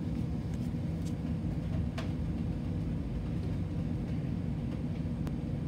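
Slowed-down full-auto airsoft gunfire, heard as a loud, continuous low rumble with a few sharp ticks through it.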